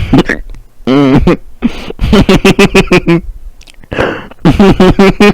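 A man's voice making loud wordless vocal outbursts: a sharp burst, a pitched yelp, then rapid strings of short pitched bursts.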